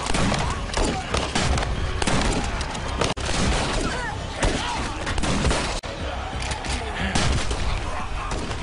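Several guns fired in rapid, overlapping shots, a volley of gunfire from a group shooting at once.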